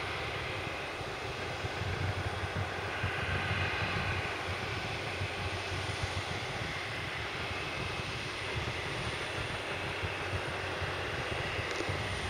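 Steady noise from a Boeing 737-700 jet airliner during pushback: a continuous low rumble with a hazy whine over it.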